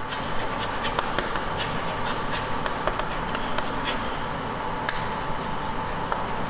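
Chalk scratching and tapping on a blackboard as words are written out: a steady run of scratchy strokes with many short ticks, over a faint steady tone.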